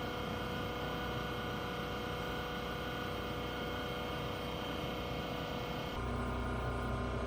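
Steady machine hum with several fixed whining tones above it. About six seconds in it changes abruptly to a deeper, heavier hum with a different set of tones.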